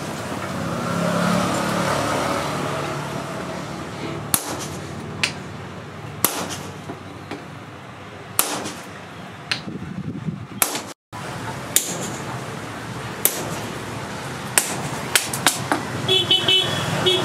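Hammer blows on a red-hot steel axe blank on a post anvil, driving a punch held in tongs into the hot metal. The strikes are single and a second or more apart, then come quicker near the end with a metallic ring.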